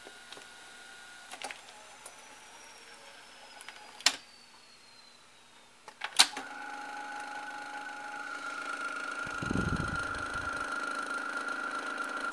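Hitachi top-load VCR mechanism clicking a few times, then about six seconds in a sharp clunk and its motor starts running with a steady whine. A low rumble comes in briefly around nine to ten seconds.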